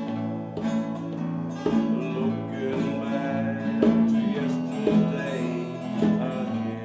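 Two acoustic guitars strummed together in a steady folk-style accompaniment, with a man's singing voice coming in at times over the chords.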